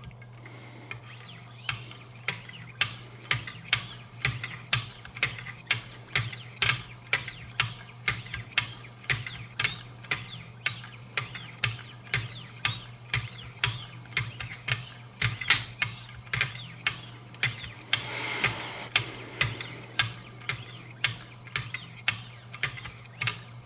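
Wicked Edge guided sharpener's 1,500-grit diamond stones stroking along the edge of a Benchmade 725 skinner blade. It makes a rhythmic scrape-and-click about twice a second, with a longer scraping stretch a little after two-thirds of the way through.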